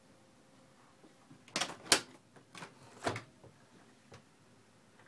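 RV refrigerator doors being handled: a cluster of about four clicks and knocks between a second and a half and three seconds in, the loudest near two seconds.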